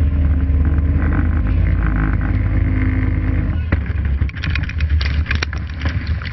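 A small rescue boat's engine running hard through rough sea, with heavy wind and water noise. About three and a half seconds in, a sharp bang as the boat slams into a wave; the engine note drops away and a burst of crashing spray and splashing follows.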